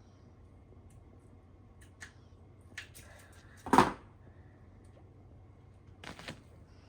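Quiet room with a few brief handling sounds as mounting tape is applied to a plastic shelf: small clicks and rustles, one louder knock just before four seconds in, and a short scratchy sound about six seconds in.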